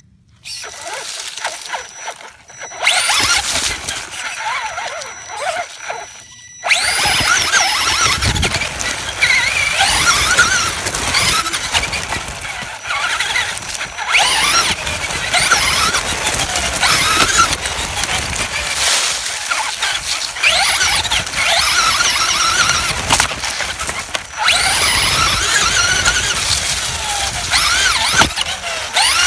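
Electric motor of a radio-controlled off-road truck whining, its pitch sliding up and down as the throttle changes. It gets louder about seven seconds in.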